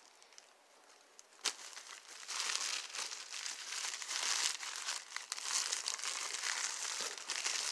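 Thin black tissue-paper wrapping crinkling and rustling as hands unfold it, starting about two seconds in and continuing without a break. One sharp tick about a second and a half in.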